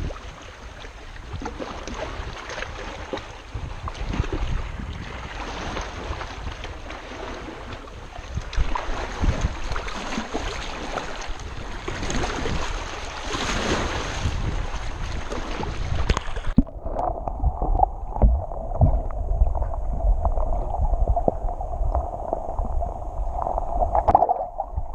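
Wind buffeting the microphone and small waves lapping against rocks at the water's edge. About two-thirds of the way through, the sound turns suddenly muffled and dull as the camera goes underwater, leaving a low sloshing rumble.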